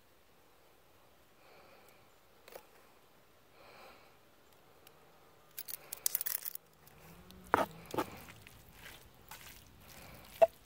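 Cooking handling sounds at a cast iron Dutch oven of ground beef. About halfway through there is a brief jingle of metal measuring spoons, then two pairs of sharp knocks on the pot as a wooden spoon stirs the meat.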